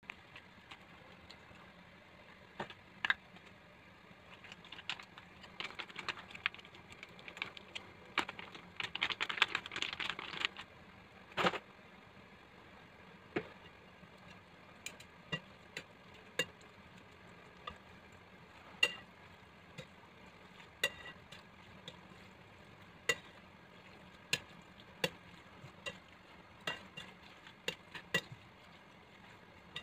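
Metal tongs clicking and scraping against a ceramic plate while tossing spaghetti in a creamy sauce. The sound is mostly single sharp clicks a second or two apart, with a busier stretch of rapid clicking and scraping about six to ten seconds in.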